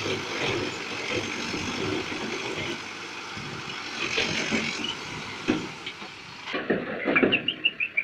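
An RJMT S 3216 backhoe loader's engine runs under load as its front bucket works a pile of broken rock, with scattered knocks. About six and a half seconds in the sound changes to a rapid series of short high chirps.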